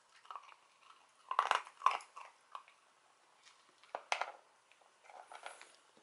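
Hard, dry cat dental treats being crunched by a pet in separate sharp bites: the loudest two about one and a half to two seconds in, another about four seconds in, and a short run of smaller crunches a second later.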